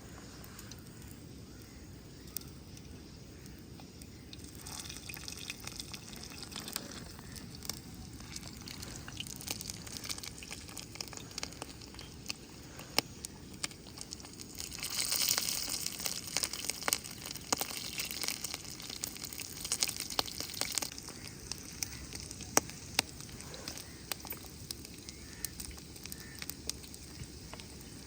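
Pork belly frying on a hot tawa (flat griddle pan): a steady sizzle with frequent sharp pops and crackles. The sizzle swells louder for several seconds about halfway through.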